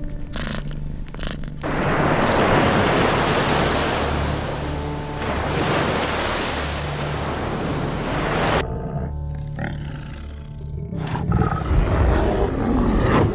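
Surf washing on a beach, a loud steady rushing hiss that cuts in about two seconds in and stops suddenly a little past the middle, over a low droning music bed. Near the end there are low, rough growling sounds.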